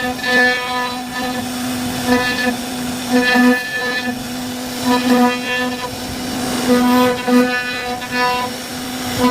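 CNC router spindle running at a steady high whine while its bit carves wood, the sound turning harsher every second or two as the cutter bites in.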